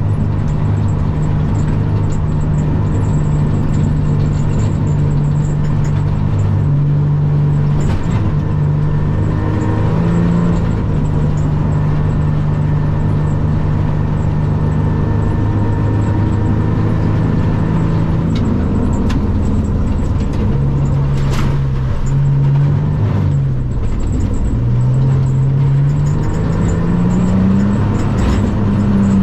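Rally car's engine heard from inside the cabin while driving a gravel stage, over a steady rumble of tyres on gravel. The engine note holds steady for long stretches, then rises and falls with throttle and gear changes, climbing again near the end. There is one sharp click about two-thirds of the way through.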